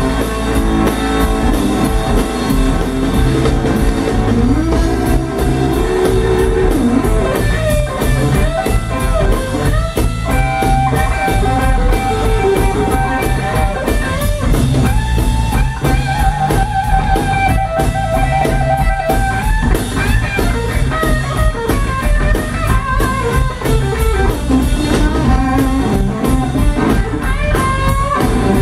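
Live blues trio playing an instrumental passage: a Telecaster-style electric guitar plays lead lines over electric bass and a drum kit keeping a steady beat. About halfway through the guitar holds a long wavering note.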